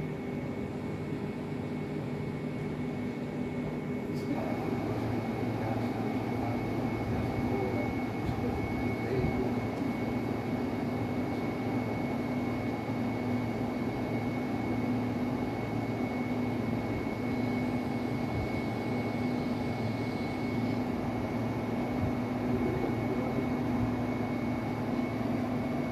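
Electric regional trains standing at a platform, their onboard equipment running: a steady hum with a constant high whine, and a deeper hum joining about four seconds in.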